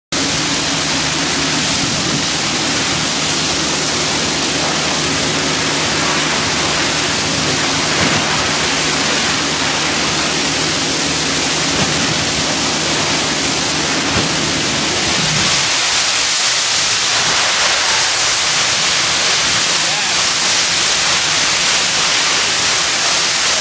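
Loud, steady rushing hiss of a large building fire being hit by master-stream water spray. Under it a low steady drone runs and cuts off suddenly about fifteen seconds in.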